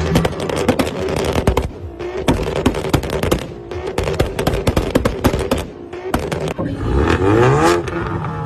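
Car exhausts popping and crackling in rapid, irregular volleys as engines are revved hard. Near the end an engine revs up with a rising note.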